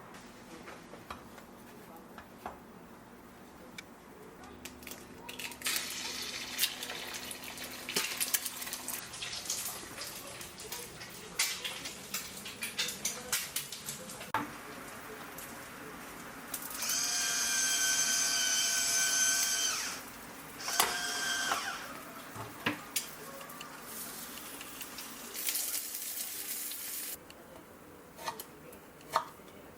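Kitchen clatter of utensils and small knocks, then a small electric kitchen appliance motor whining steadily for about three seconds, followed by a second short burst a second later. A brief hiss comes near the end.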